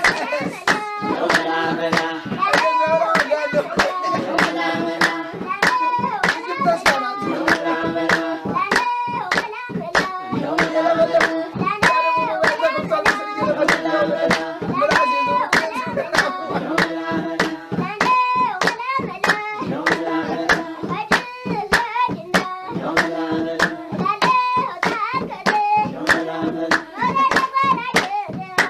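A group singing a rhythmic song to steady hand clapping, about three claps a second.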